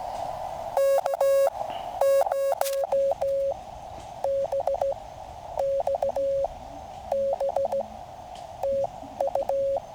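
Morse code (CW) tones at about 600 Hz from a QCX mini QRP transceiver, keyed in dits and dahs over a band of receiver hiss through its narrow CW audio filter. The first few characters, about one to three seconds in, are louder and buzzier than the rest.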